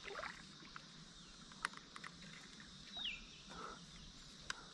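Faint outdoor ambience with a bird call sliding down in pitch about three seconds in, and a few soft clicks.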